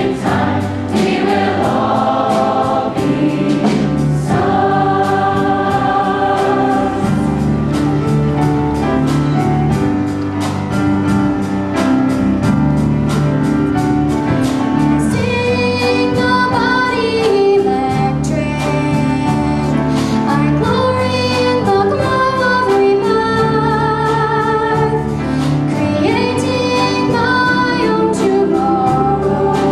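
Youth choir singing with an accompaniment that carries a steady beat. From about halfway, a single girl's voice sings a solo line over it.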